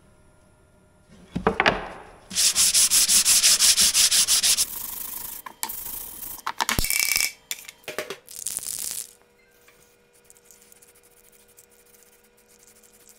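Hand sanding a carved wooden cutting board with a sanding sponge: fast back-and-forth rubbing strokes, loudest for about two seconds, then several shorter bursts that stop about nine seconds in. A short knock comes just before the sanding starts.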